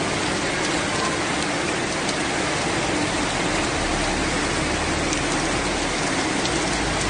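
Torrential rain pouring down, with floodwater rushing through a street: a steady, dense wash of noise that does not let up.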